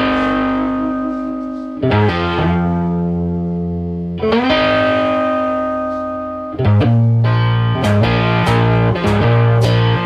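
Background music on electric guitar with effects: chords struck about every two seconds and left ringing, then a faster rhythm with a steady beat from about three-quarters of the way in.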